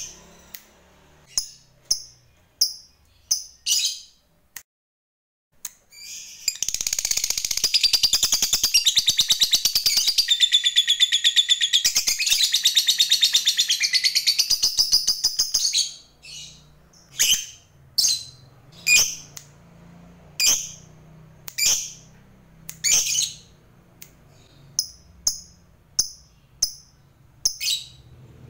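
Lovebird calling: sharp single chirps, then from about six seconds in a long, very fast chattering trill (the 'ngekek' that Indonesian lovebird keepers prize) lasting about nine seconds, then single sharp chirps again about once a second.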